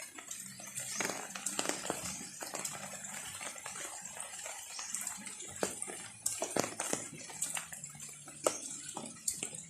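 Goats eating banana leaves: an irregular crackle of leaves tearing and rustling, over a steady hiss of rain.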